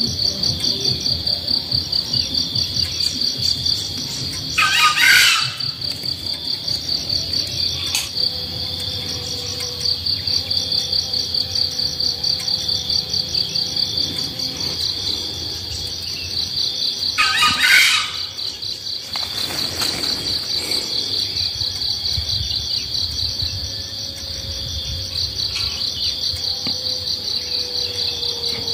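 Insect chorus: a steady, high-pitched trilling that pulses in a fast, even rhythm. Two louder bird calls break in, about five and seventeen seconds in.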